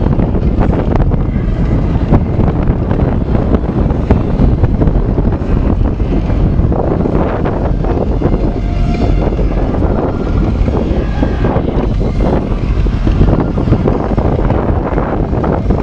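Amphibious tour bus's engine running as it cruises across the water, under a loud, steady rumble of wind buffeting the microphone.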